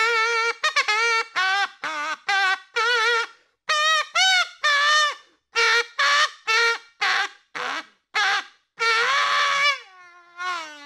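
A brassy, honking horn-like sound playing a quick run of short notes that waver in pitch, ending in one long note that slides downward.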